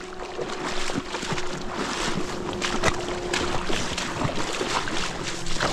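Splashing and sloshing in shallow river water: many short, irregular splashes over a steady rushing noise.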